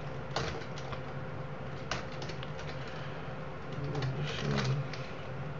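Computer keyboard being typed on in short runs of key clicks, over a steady low hum.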